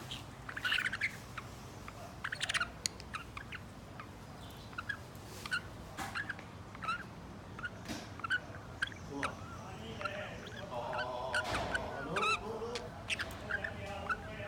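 Pet budgerigar and cockatiel calling: many short, sharp chirps scattered throughout, with a longer, lower warbling passage about ten seconds in.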